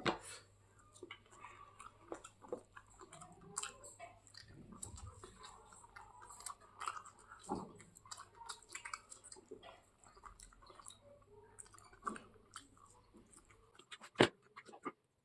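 A person chewing and eating an omelette, with small irregular wet mouth clicks and crunches, and one sharp click near the end.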